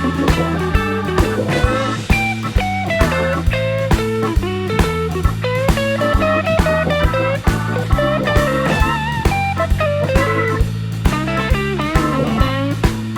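Background music: a blues-rock instrumental with a bending guitar lead over a repeating bass line and a steady drum beat.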